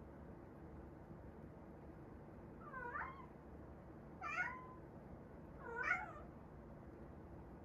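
Domestic cat meowing three times, about a second and a half apart, starting about three seconds in. Each call is short and bends in pitch.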